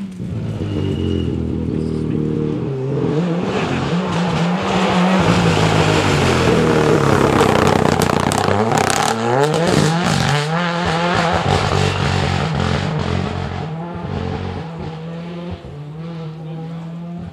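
Rally car engine driven hard through a bend, its pitch climbing and dropping with each gear change. It builds to loudest as the car passes, with sharp cracks around that moment, then fades as it goes away.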